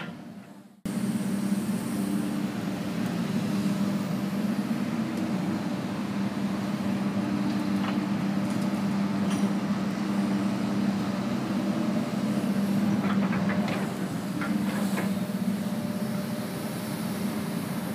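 Steady drone of construction machinery, an engine running with a constant low hum. The sound drops out briefly for under a second at the start, then resumes.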